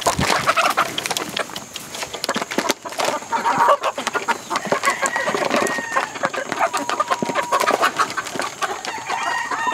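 A flock of young chickens pecking grain from a metal feed pan: rapid, overlapping clicks of beaks on the pan and feed, with clucking. A few longer held calls come in from about five seconds on and again near the end.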